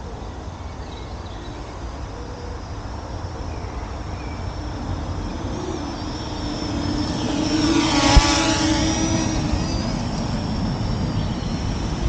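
Parrot Anafi quadcopter's motors and propellers whining in flight. The whine grows louder as it passes close, peaking about eight seconds in, then eases a little.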